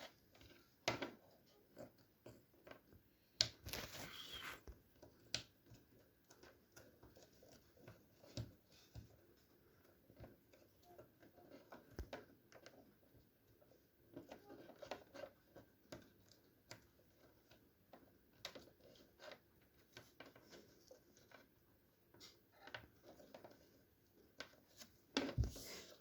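Faint, scattered clicks, taps and scrapes of small parts and tools being handled during work on a garland's power block. A slightly louder patch of rustling comes about four seconds in, and another near the end.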